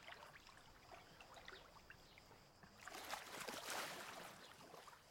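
Faint splashing and lapping of swimming-pool water, then a louder splash lasting about a second, about three seconds in, as a swimmer goes down into the water.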